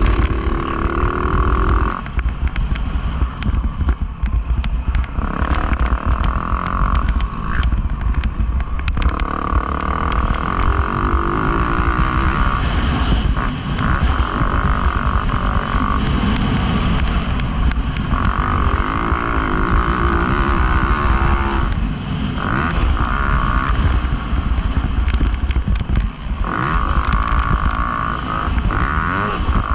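Dirt bike engine on a motocross track, revving hard and backing off again and again as the throttle opens and closes, with pitch sweeps as it winds up, over a steady low rumble.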